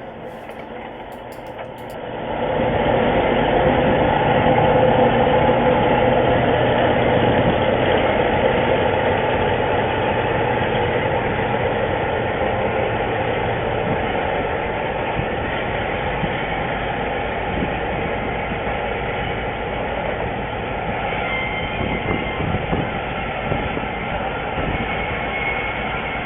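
Narrow-gauge Whitcomb 65-ton center cab diesel switcher under way: diesel engine and rolling noise, growing louder about two seconds in and then running steadily. A faint high tone comes through twice near the end.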